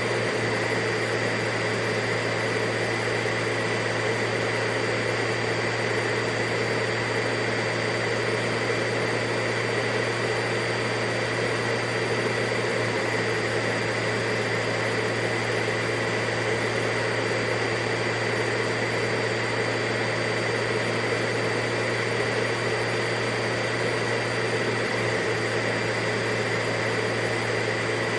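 Vacuum cleaner motor running at a steady pitch: an even rush of air with a constant high whine over a low hum.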